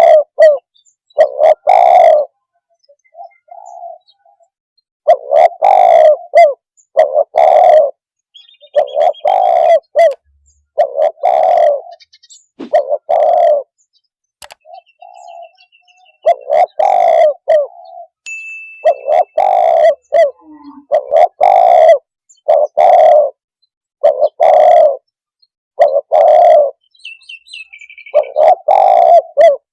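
Spotted dove (tekukur) cooing: loud low coo notes repeated in short phrases, with pauses of a second or so between them. Faint high chirps of another small bird come in now and then.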